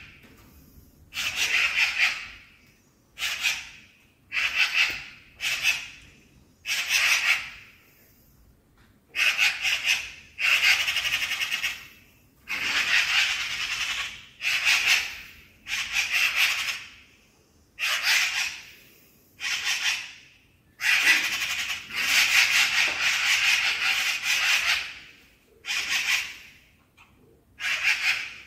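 Magpie giving its harsh rattling alarm chatter: a long run of scratchy bursts, each lasting about half a second to two seconds, repeated with short pauses between them.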